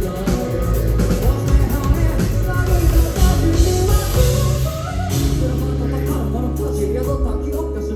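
A live rock band playing, with drums, guitar and bass. The drumming thins out about five seconds in, leaving held low bass notes and sustained chords.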